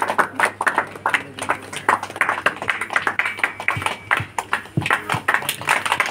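A crowd clapping: many quick, uneven hand claps, with a few dull low thumps in the second half.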